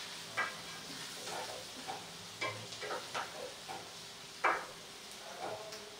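Food frying in oil in a kadai with a steady sizzle, stirred with a wooden spatula that scrapes and taps against the pan every second or so, the loudest knock about four and a half seconds in.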